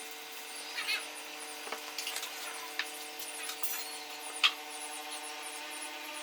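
Tools and wood being handled on a workbench: a few sharp clicks and short scrapes, the loudest click about four and a half seconds in, over a steady hum.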